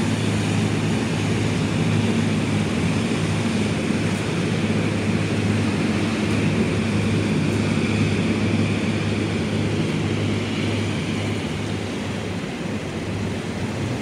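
A boat's engine running with a steady low drone, under a constant hiss of water rushing past the hull.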